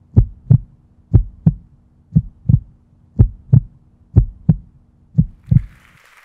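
Heartbeat sound effect: six deep lub-dub double thumps, about one a second, over a faint steady low hum. The beats and the hum stop just before the end.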